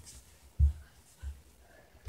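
Three short, dull low thumps in a small, quiet room, the first about half a second in and the loudest.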